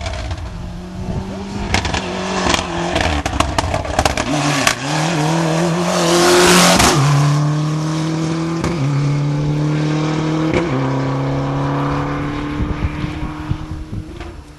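Rally car accelerating hard past, its engine climbing in pitch through the gears with quick upshifts every couple of seconds. Sharp cracks come in the first few seconds, then a loud rush of noise as it passes closest. The engine fades as it pulls away.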